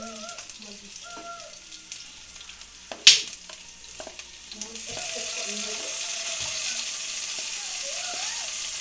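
Garlic and tomatoes sautéing in hot oil in a pan, sizzling as they are stirred. A sharp clatter comes about three seconds in, and then the sizzle grows louder and stays up.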